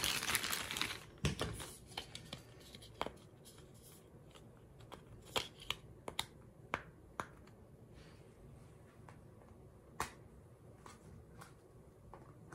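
Plastic packaging crinkling and rustling in the first second or so, then scattered small clicks and taps as plastic bags and pieces are handled.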